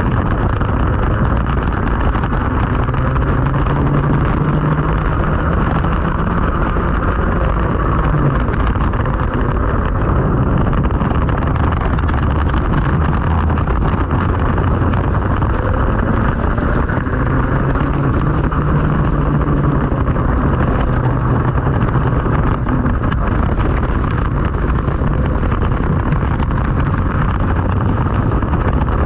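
Racing kart engine running hard, heard onboard, its note rising and falling as the kart slows and picks up speed through the corners, over a steady rush of wind and water spray on the wet track.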